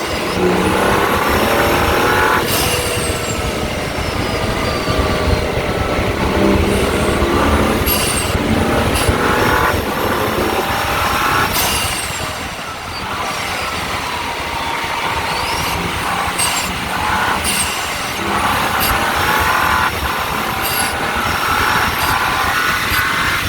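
BMW M135i's turbocharged N55 straight-six, with a stage 1 tune, decat and middle silencer deleted, pulling hard and repeatedly revving up. Each climb in pitch ends in a sudden drop as the driver shifts or lifts off, heard from the front of the car.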